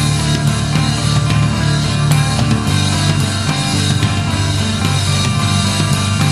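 Progressive rock music with distorted guitars, bass and drums, loud and dense; the low notes shift about three seconds in.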